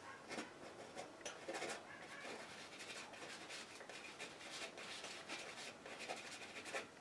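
Palette knife dabbing and scraping oil paint onto a canvas in quick short strokes, a faint run of scratchy ticks.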